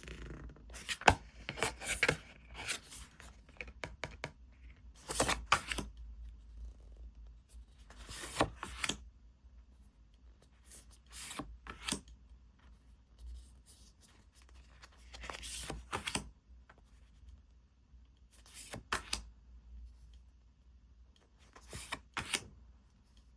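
Packaging being handled and torn open, rustling and crinkling in short bursts every few seconds, with a sharp click about a second in.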